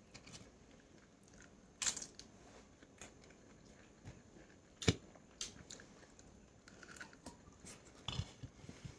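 A person eating chicken and rice close to the microphone: chewing and biting, with scattered crunches and sharp clicks, the loudest about two and five seconds in.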